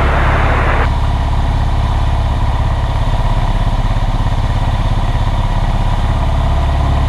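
Cessna 172's engine and propeller droning steadily in the cockpit. A burst of radio hiss, left over from the last transmission, cuts off suddenly about a second in.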